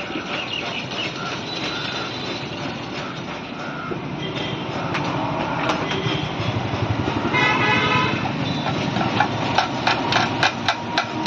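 Steady road traffic going by, with a vehicle horn tooting about seven and a half seconds in. Over the last two seconds comes a run of quick sharp taps and scrapes, in time with a metal spreader working body filler on a mixing board.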